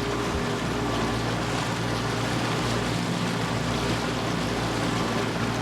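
Boat engine running at a steady pitch under a constant rush of water and wind.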